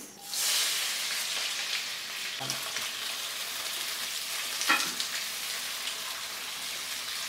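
Sliced onions dropped into hot mustard oil: a sizzle that is strongest as they land in the pan, then settles into steady frying. A spatula scrapes through the onions twice along the way.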